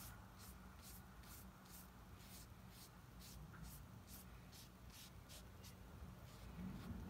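Paintbrush stroking quickly over watercolour paper, a faint scratchy swish with each stroke, about three a second.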